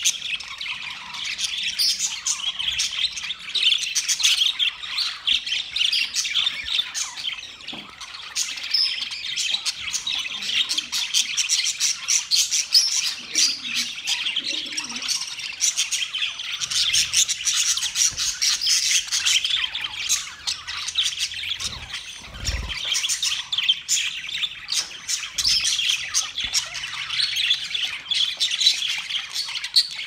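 Budgerigars warbling and chattering: a steady, unbroken stream of fast, high chirps, squawks and clicks. A brief low thump sounds about two-thirds of the way through.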